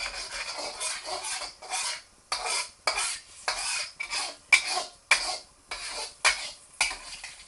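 Utensil scraping and stirring in a hot wok with repeated scraping strokes, a little under two a second, working the browned bits off the pan while it is deglazed with a little water.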